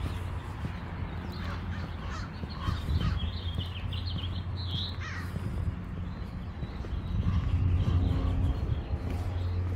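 Crows cawing several times in the first half, over a steady low hum that gets louder near the end.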